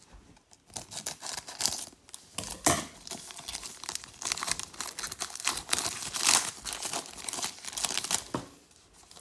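Foil wrapper of a baseball card pack being torn open and crinkled by hand: a continuous crackle that starts about a second in and stops near the end.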